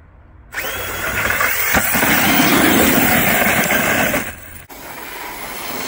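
Arrma Fireteam 6S buggy's brushless electric motor whining up as it accelerates, with its tyres spinning and tearing across loose dirt. The sound drops out briefly a little after four seconds in, then resumes.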